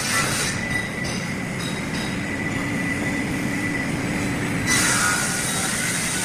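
CNC block-cutting saw running, a steady mechanical noise with a thin high whine. The hissing top end falls away about half a second in and comes back a little louder near five seconds.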